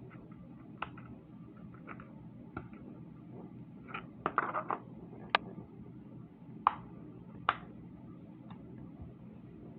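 Bubbles of a silicone pop-it fidget toy being pressed, giving irregular sharp little pops: a quick cluster about four seconds in, then a few single pops, over a low steady hum.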